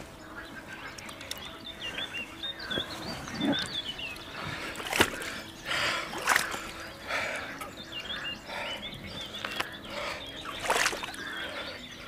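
River water splashing and dripping as a large mirror carp is lifted out of the water by a wading angler, with a few sharp splashes about five, six and eleven seconds in. Small high chirps sound in the background.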